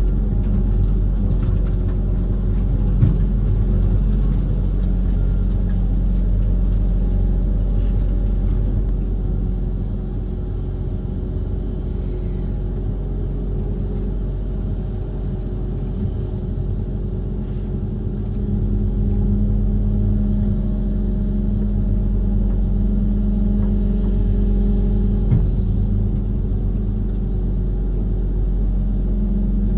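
Diesel engine of an amphibious excavator (Kobelco SK130) running steadily under work. It eases off slightly about ten seconds in and picks up again a little past halfway. Two brief clunks come about three seconds in and again near the end.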